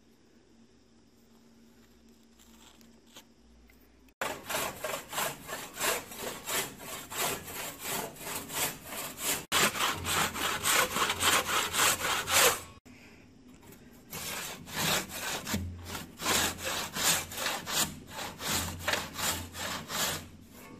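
Hand saw cutting into an oak trunk in quick, even strokes, about two to three a second. The sawing starts about four seconds in and pauses briefly past the middle.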